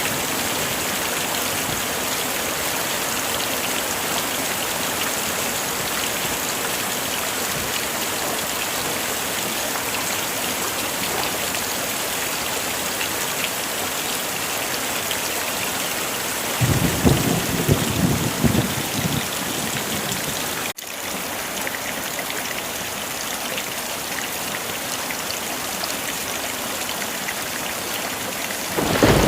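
Heavy rain falling steadily as a dense hiss. A low rumble of thunder rises about 17 seconds in and lasts a few seconds, and another begins near the end. The rain cuts out for an instant about 21 seconds in.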